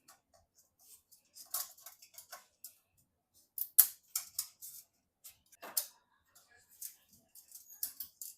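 Irregular small clicks, taps and rustles of hands handling PC parts, with two sharper clicks, one a little under four seconds in and one near six seconds.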